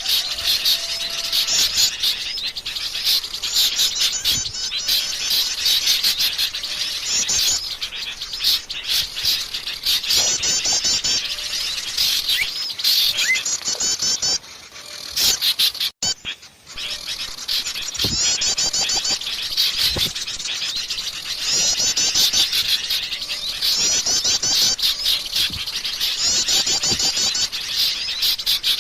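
Wild forest birds singing in rapid, high chattering phrases repeated every second or two, with a short break about halfway through.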